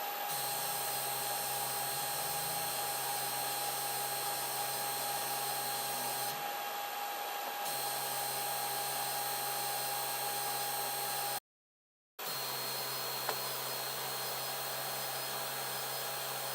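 Protomaker Black Sprint FDM 3D printer running: a steady fan whir with the low hum of the Z-axis stepper motors as the axis is driven up, the hum shifting in pitch now and then. The sound cuts out completely for under a second about two-thirds of the way in.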